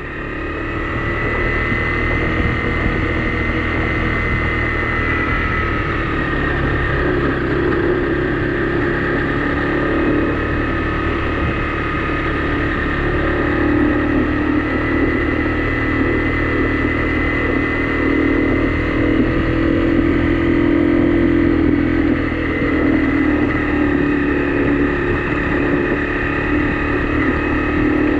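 Honda CRF250 Rally's single-cylinder engine running under way as the motorcycle rides along a dirt trail. It swells over the first couple of seconds as the bike gets moving, then holds a steady pace with small rises and falls in pitch.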